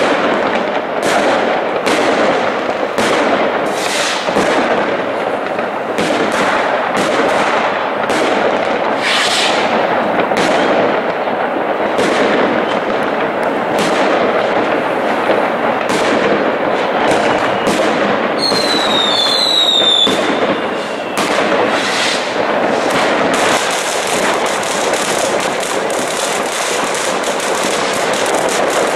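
Fireworks going off all around without a break: a dense crackle of rocket bursts and firecracker bangs and pops. A little past halfway come two short whistles falling slightly in pitch, and the crackling grows denser near the end.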